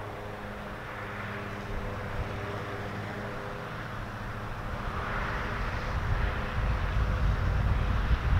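Distant motor vehicle traffic: a steady engine hum, with a swell of passing noise about five seconds in. Wind rumbles on the microphone, growing over the last few seconds.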